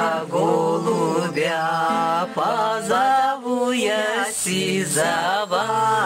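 A group of people singing a Russian folk song together, several voices with long held notes and short breaks between lines.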